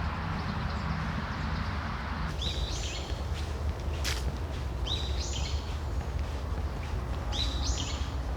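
A songbird repeating the same short call three times, about every two and a half seconds, over a steady low outdoor rumble. A steady hiss stops about two seconds in, and there is one sharp click midway.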